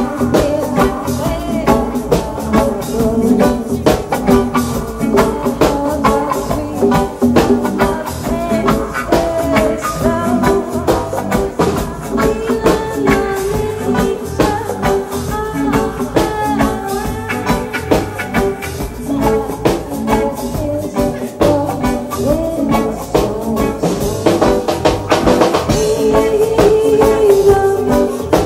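A band playing music with a steady beat: drums and shaken percussion over sustained instrumental lines, with no words sung.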